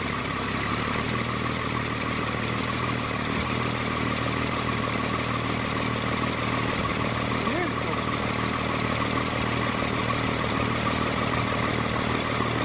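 BMW N57 3.0-litre straight-six turbo diesel idling steadily with its intake manifold removed, drawing air straight in through the open intake ports.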